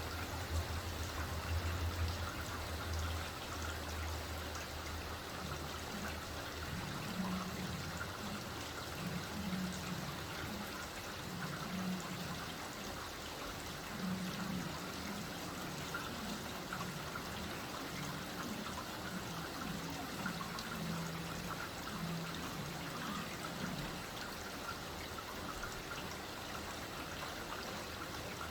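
Steady light rain falling, an even hiss of drops with no thunder. A low hum sits under it for the first few seconds.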